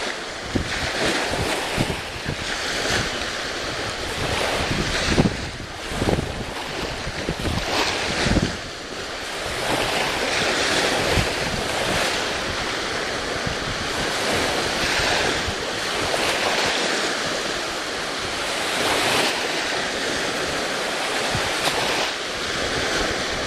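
Ocean surf washing in swells, with wind gusting on the microphone, the gusts heaviest in the first half.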